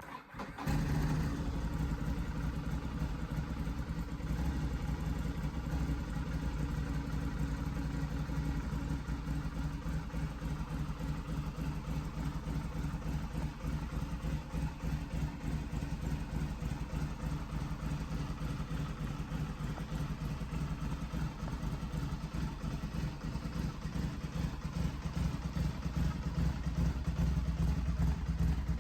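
Bimota DB6 Delirio's Ducati 1000cc air-cooled L-twin engine starting up and settling straight into a steady idle.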